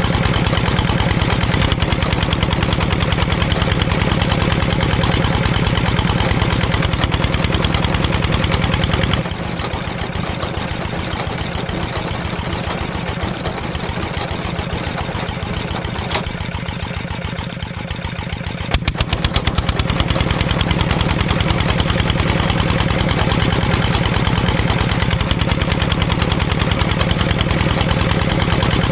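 A small engine running steadily with a fast, even chug. About nine seconds in it drops quieter and thinner for roughly ten seconds, then comes back to full strength.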